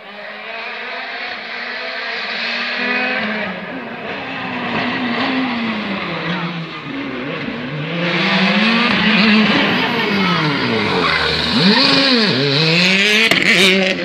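Rally car engine revving hard at speed, its pitch climbing and dropping repeatedly through gear changes, growing louder as the car approaches and sweeping up and down as it passes close by near the end.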